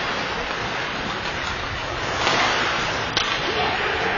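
Ice hockey rink noise: a steady hiss of skates on the ice mixed with arena din, swelling louder about two seconds in, with one sharp click of a stick or puck just after three seconds.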